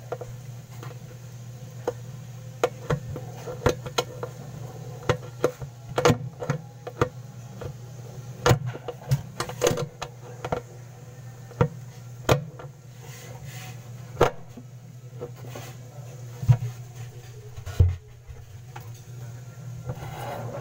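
Sharp metal clicks and knocks, irregular and scattered, from a steel concealed cabinet hinge being pressed and clipped onto its mounting plate and worked by hand. A steady low hum runs underneath.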